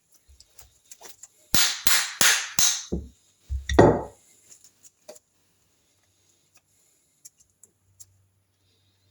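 Hammer tapping the stuck Triumph Trident T160 oil pump to work it apart: about five quick sharp taps, then one heavier knock.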